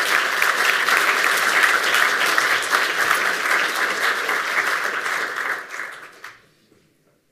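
Large audience applauding, many hands clapping in a dense, steady clatter that dies away about six seconds in.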